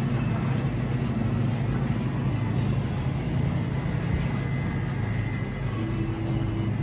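Steady low hum of the shop's refrigerated display cases running.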